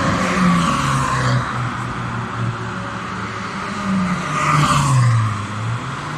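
Car engines accelerating along a racetrack straight as several cars drive past in turn. One passes close about four to five seconds in, its engine note dropping as it goes by.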